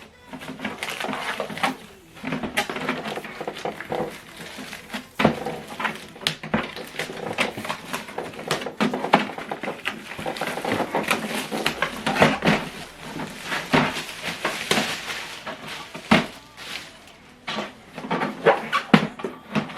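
Irregular clicks, knocks and rustling as the plastic HP DeskJet 4220e printer and its packaging are handled.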